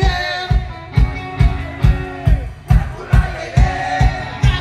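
Live rock band playing over a PA: electric guitars ringing over a drum kit that keeps a steady beat of about two kick hits a second, with some sliding notes.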